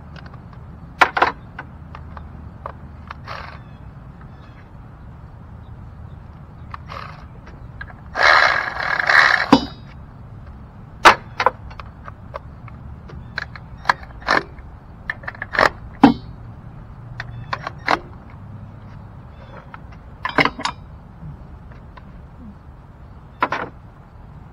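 Scattered sharp metallic clinks and knocks of tools and parts being handled, with a longer rattling clatter about eight seconds in.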